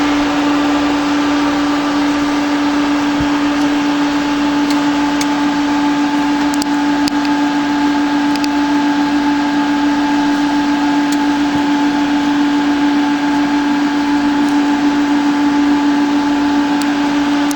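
Electrical systems of a Cessna Citation 560XL business jet powered up on battery with no engine or APU running: a steady electrical hum with one strong, even tone and fainter whining tones above it, from the cockpit fans and avionics. A few faint clicks sound over it.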